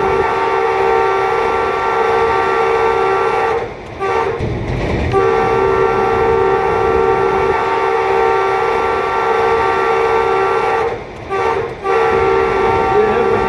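Pakistan Railways ZCU-20 diesel-electric locomotive's air horn sounded in long, steady blasts. It breaks off for about a second and a half around four seconds in and twice briefly near eleven seconds, as a warning to a cow and people at the track ahead.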